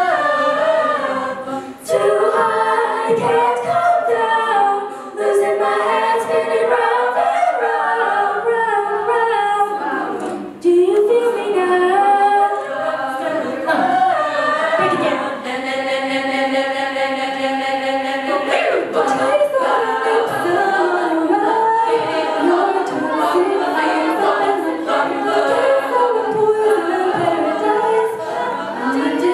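Girls' a cappella choir singing in close harmony, with a solo voice on a handheld microphone over the group. About halfway through, the voices hold one long chord for a few seconds.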